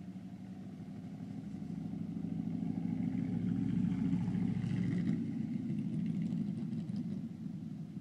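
3/4 midget race car's engine running as the car drives past, growing louder to a peak about halfway through and then fading as it pulls away.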